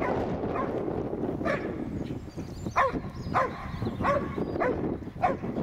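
Karelian bear dog barking at wild boar in short sharp barks, about seven of them, coming faster in the second half: baying the boar in wild boar training. A steady low background noise runs underneath.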